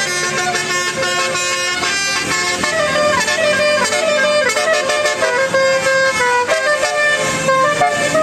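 Basuri telolet horn on a bus, a set of air-horn trumpets playing a tune: loud held notes that step up and down in pitch.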